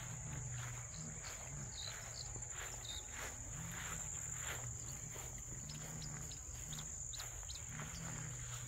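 Field insects trilling in one steady, unbroken high-pitched tone, over a low hum and a few faint short chirps.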